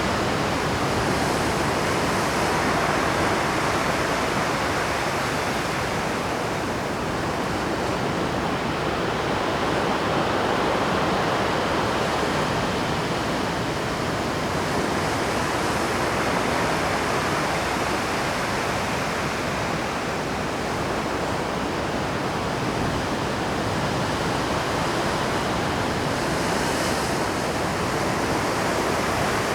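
Rough Pacific surf breaking on a rocky shore: a continuous rush of water that swells and eases every several seconds.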